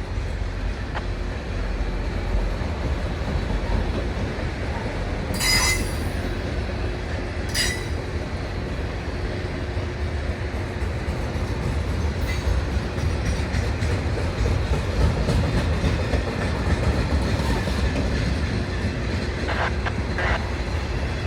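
Freight train of autorack cars rolling past: a steady rumble of steel wheels on rail. Two brief sharp wheel squeals come about five and a half and seven and a half seconds in.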